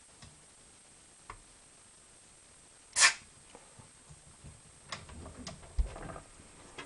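One short hiss of canned smoke sprayed from an aerosol can at a smoke detector to test it, about three seconds in. It is followed by a few light handling clicks and a soft thump.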